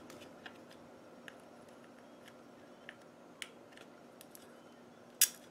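Faint, scattered small clicks and taps as a circuit board is handled and a soldering iron is worked against it while desoldering a capacitor, with one sharper click about five seconds in.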